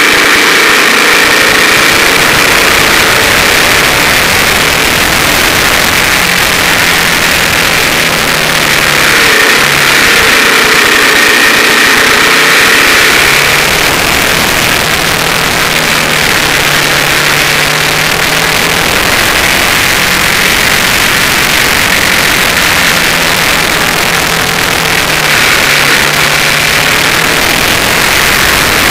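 Suzuki TL1000S's 90-degree V-twin engine pulling hard at track speed, its pitch rising and falling with throttle and gear changes, under heavy wind rush on a camera mounted low beside the front wheel.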